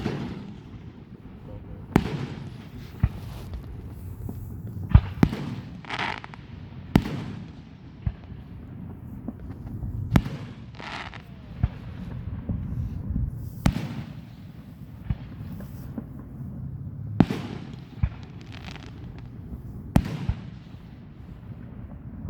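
Fireworks going off: sharp bangs at irregular intervals of about one to three seconds, each with a trailing echo, over a low rumble.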